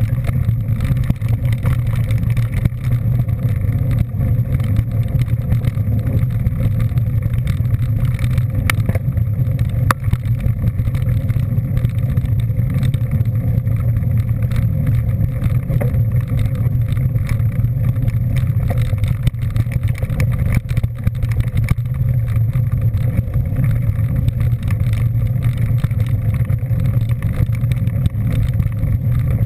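A moving vehicle's engine running at a steady speed: a constant low drone that neither rises nor falls.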